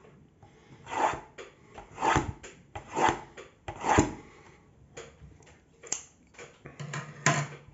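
Scissors slitting the plastic wrap on a trading card box: four loud scraping strokes about a second apart, then quieter handling of the box and wrap.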